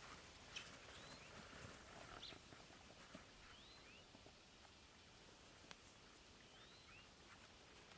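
Near-silent outdoor ambience with a few faint, short, high rising chirps scattered through it.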